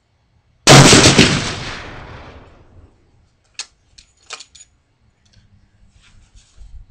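A single shot from a .338 Lapua Magnum Dakota Longbow bolt-action rifle with a muzzle brake, very loud and sudden about a second in, its report rolling away over about two seconds. A few sharp metallic clicks follow as the bolt is worked.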